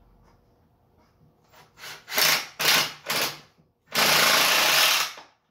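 Cordless drill driving a screw into wood: three or four short bursts, then one steady run of about a second.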